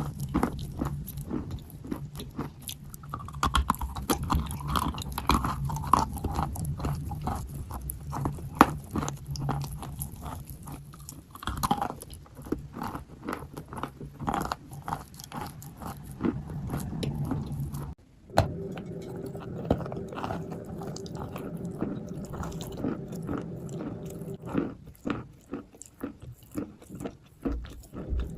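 A person biting and chewing wet white chalk close to the microphone: dense, irregular crunching and wet chewing, with a brief break about two-thirds of the way through.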